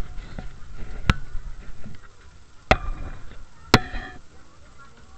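Three sharp knocks, the last two each followed by a short ringing tone, like struck metal.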